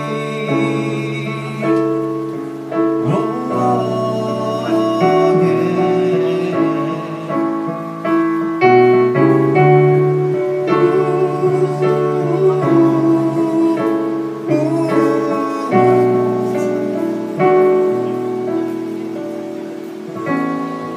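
A live song on electric keyboard, played in full sustained chords with a singer's voice over it, amplified through small PA speakers.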